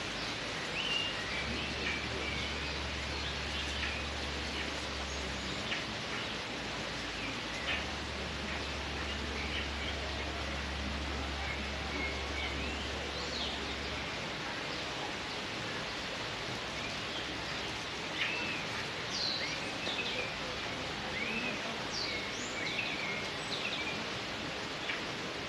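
Small birds chirping and calling again and again over a steady outdoor background hiss, the calls coming more often near the end.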